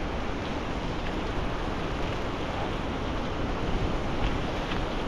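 Steady wind rushing over the microphone as a mountain bike rolls downhill on a wet gravel road, its tyres running over the gravel.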